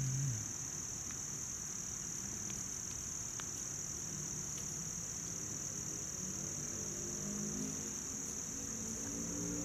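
Steady, shrill chorus of late-summer insects, an unbroken high-pitched drone. Faint low tones hum underneath in the second half.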